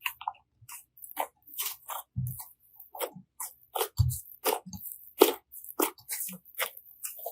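Slime being squished and pressed by hand: an irregular run of wet crackles and pops, several a second, with a low thud about two seconds in and another about four seconds in.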